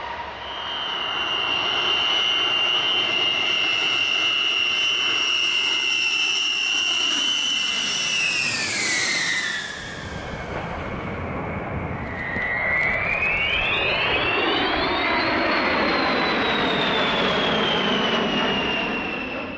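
Jet aircraft engine with a high whine over a loud rush. The whine drops in pitch about eight seconds in as the aircraft passes, then a second whine sweeps up and slowly sinks again as another pass comes through.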